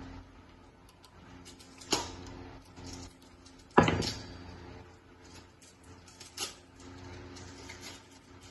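Hand tools and fixture hardware being handled on a metal light profile: a sharp knock about two seconds in, a louder clack with a brief ring near four seconds, and a few light clicks later, over a steady low hum.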